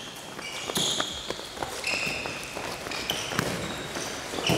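Handball drill on an indoor court: a ball bouncing and smacking into hands, running footsteps, and several short squeaks of shoes on the hall floor, echoing in a large sports hall.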